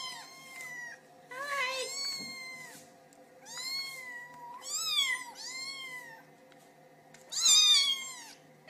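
Young kittens meowing over and over: about six high, thin mews, each rising and then falling in pitch, with short gaps between them. The loudest call comes near the end.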